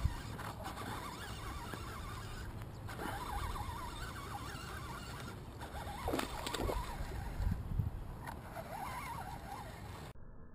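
Water sloshing around a small fishing boat while a hooked largemouth bass is played on the line, with louder splashing as the fish reaches the surface about six seconds in.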